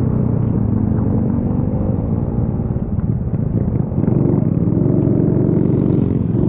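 Honda C90's small single-cylinder four-stroke engine running while the bike is ridden, with wind rush over it. The engine note shifts about four seconds in and then runs louder.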